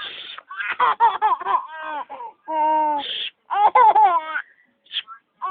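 A person fakes a sneeze twice, the second a drawn-out 'aah-choo', and a baby answers each with a short burst of giggling laughter.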